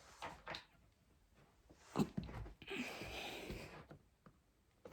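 Cardboard graphics card box being handled and worked open: a few soft knocks, a sharper knock about two seconds in, then about a second of scraping and rustling.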